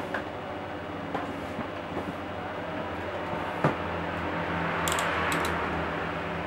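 Small clicks and taps of laptop parts and a drive being handled, over a steady background hum. About five seconds in there is a rustling swell with a quick cluster of sharp ticks.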